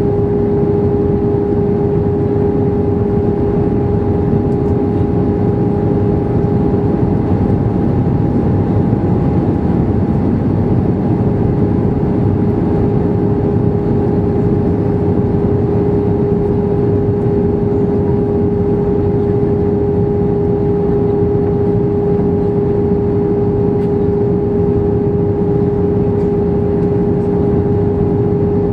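Steady cabin drone of an Airbus A320 in flight, heard from a window seat by the wing: the jet engines' even hum with a deep rumble and airflow hiss, unchanging throughout.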